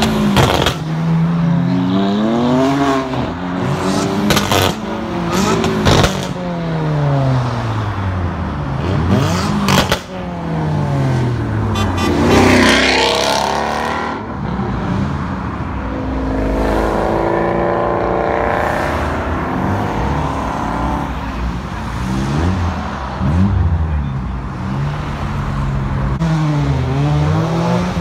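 Performance car engines revving hard and accelerating past one after another, their notes repeatedly rising and falling. Sharp exhaust cracks come in the first six seconds, and one car goes by loud and close about twelve seconds in.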